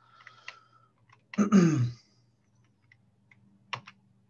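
A short wordless vocal sound from a person, falling in pitch, about a second in, then two quick clicks near the end, over a faint steady low hum.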